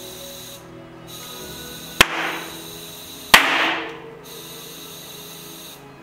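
Background music, with two sharp knocks about a second and a half apart, each followed by a short hiss.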